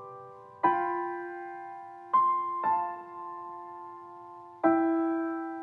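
Slow, gentle piano background music: four chords struck one at a time, each left to ring and fade before the next.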